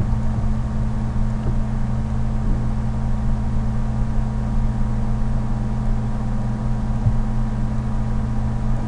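Steady low hum with an even hiss over it, unchanging throughout.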